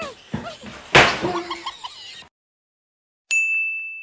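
Short vocal cries with one loud thump about a second in, then the sound cuts off to silence. Near the end a single bright ding, an end-card sound effect, rings out and fades.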